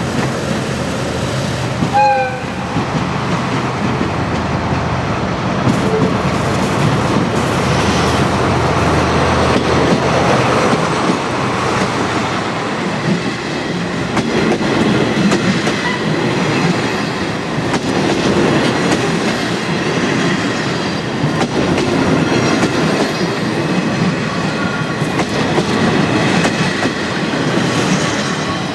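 Train rolling past with wheels clacking over the rail joints, steady throughout, with a brief high tone about two seconds in.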